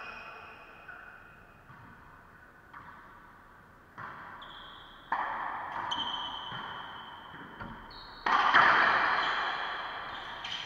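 Racquetball rally: a hollow rubber ball struck by racquets and smacking off the court walls and floor. Each hit rings with a high ping and a long echo in the enclosed court. The hits start faint and come irregularly, with the loudest two about five and eight seconds in.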